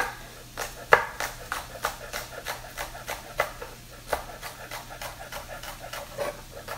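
Chef's knife chopping green onions on a wooden cutting board: a steady run of knocks, about three a second, as the blade hits the board.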